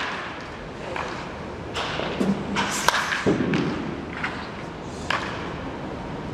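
Baseball batting practice in an indoor cage: several sharp bat-on-ball hits and thuds about two seconds apart, ringing in a large hall.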